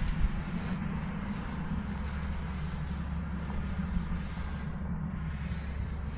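Electric ducted-fan motor of an 80 mm E-flite F-18 RC jet in flight at a distance, a steady rushing whine with a thin high tone, over a low rumble of wind on the microphone.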